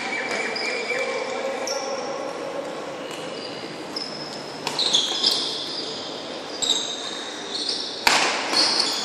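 Badminton rally: court shoes squeaking in short high chirps on the hall floor, with a few sharp racket hits on the shuttlecock, the loudest one about eight seconds in. The hall gives it a slight echo.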